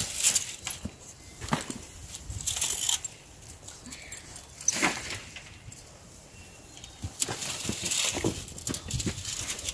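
Scattered short scuffs and clicks of rubber boots stepping on bare dirt and a dog moving about on a light metal tie-out chain that clinks now and then.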